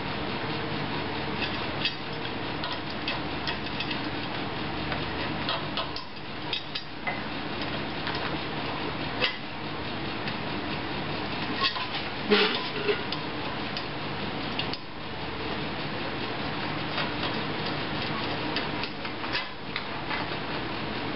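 Light, irregular metallic clicks and clinks as bolts are fitted by hand through a metal mounting plate into the base of a Yaesu 450-G antenna rotor, with one sharper clack about halfway through. A steady background hum runs underneath.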